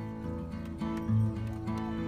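Background music: plucked acoustic guitar over a low note that repeats about every second and three quarters.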